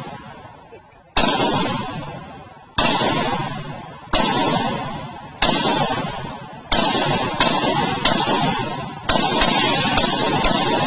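Ruger Mini-14 Ranch Rifle fired semi-automatically, about nine shots spaced roughly one to one and a half seconds apart, a little quicker in the middle. Each shot is a sharp crack followed by a long fading echo.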